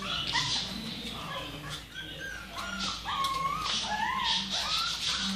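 A litter of young Staffordshire bull terrier puppies whimpering and squeaking, many short high calls overlapping, each rising and falling in pitch.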